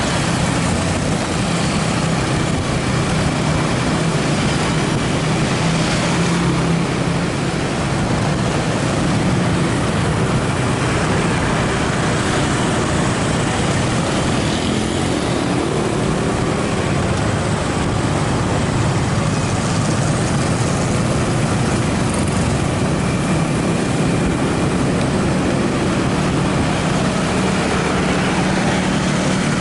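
Motorcycle engine running steadily under way, with road and wind noise over the microphone.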